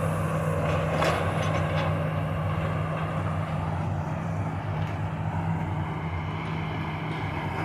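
Engine of heavy demolition machinery running steadily, with a few faint knocks about a second, three seconds and five seconds in.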